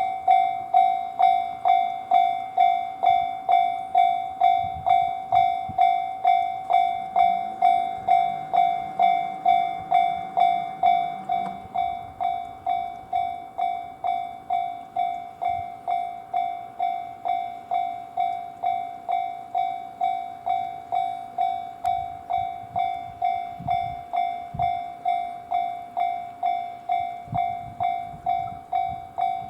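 Japanese railway level-crossing warning alarm ringing, a single metallic-sounding tone struck about twice a second without pause, a little quieter from about twelve seconds in.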